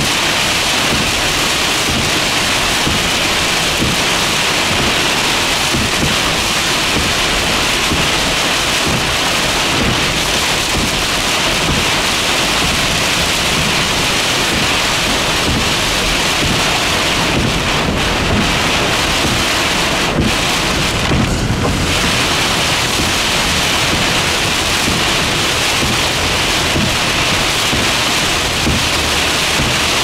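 Heavy downpour hitting a car's windshield and roof in strong wind, heard from inside the car: a loud, steady, dense hiss that hardly changes.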